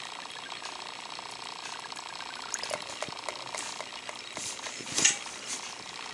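Steady fine bubbling and fizzing of aerated water in a small aquarium, from an airline. Scattered light clicks come in from about halfway, with a louder knock about five seconds in.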